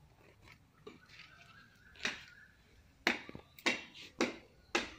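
Scissors snipping through bottle gourd vine stems: five sharp clicks, a single one about two seconds in, then a quick run of four at roughly two a second.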